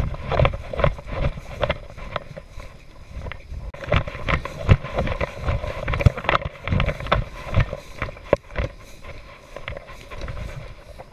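Footsteps through tall dry grass, the stalks rustling and brushing against the walker, in irregular steps, with wind rumbling on the microphone.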